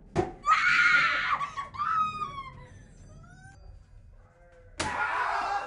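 A sharp bang, then a loud scream with falling wails trailing off; a second loud scream starts near the end.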